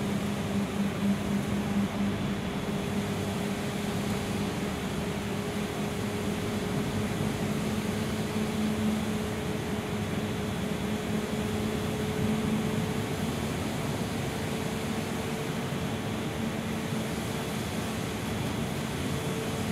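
Interior drone of a Gillig Low Floor city bus under way: a steady engine and drivetrain hum with a low tone that edges slightly higher in the second half, over a steady hiss of road noise.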